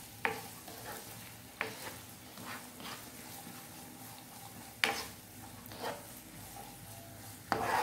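Chopped onions and curry leaves sizzling in ghee in a nonstick frying pan, with a steady faint hiss. A spatula scrapes through them in about six short stirring strokes.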